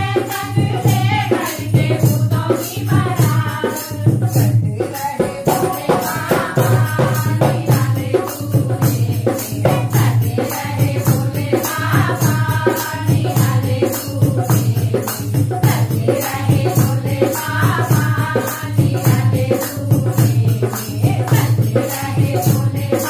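Women's group singing a Hindi devotional bhajan to Shiva in unison, with a dholak drum and hand claps keeping a steady beat. The sung lines return every few seconds over the continuous rhythm.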